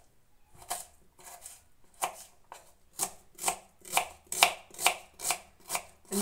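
Kitchen knife chopping a red onion on a wooden cutting board: a few scattered cuts at first, then a steady run of about two to three sharp knocks a second.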